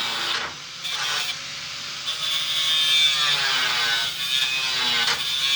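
Angle grinder cutting through a copper rod: a gritty grinding noise over the motor's whine, which sags and recovers in pitch as the disc bites. The sound drops briefly about half a second in.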